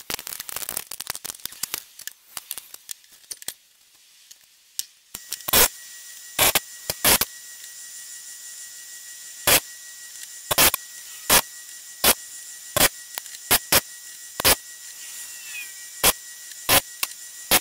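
An old electric motor with a diamond sharpening wheel on its shaft switches on about five seconds in and runs with a steady whine. Carbide saw-blade teeth are then touched to the spinning wheel one at a time, a short loud grind roughly every second as the blade is turned tooth by tooth on its sharpening jig. Before the motor starts there are light clicks and rubbing as the jig is adjusted.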